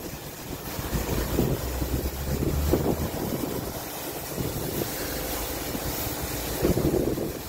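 Kärcher rollover car wash running empty, its large rotating brushes turning and water jets spraying over a low machine rumble. Wind buffets the microphone in uneven gusts.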